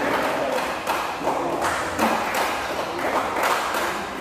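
A run of sharp taps and thuds, about two to three a second, ringing in a large sports hall, over the chatter of spectators.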